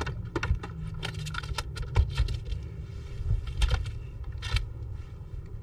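Scattered clicks and knocks from a just-caught crappie being handled on a fishing boat's deck to be measured, over a steady low rumble.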